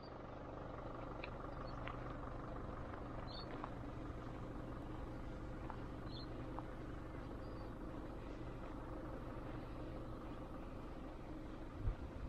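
A steady low mechanical hum of several held tones, with a few short high chirps scattered through it and a couple of low thumps near the end.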